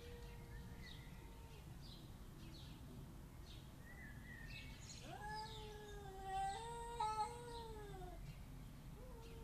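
Cat caterwauling: a long, drawn-out yowl held for about a second and a half, then after a pause another long, wavering yowl of about three seconds that sags in pitch as it ends. Faint bird chirps can be heard in the background.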